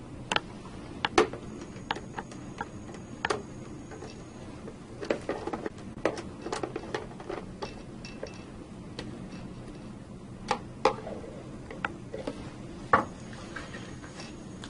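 Irregular small clicks and taps of screws and a screwdriver against a circuit breaker's front cover as the cover screws are fastened, with a few sharper knocks about a second in and near the end.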